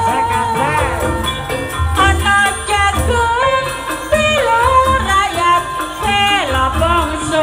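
Live campursari music, Javanese dance music, with a singer's wavering melody over the band and a pulsing low drum or bass beat.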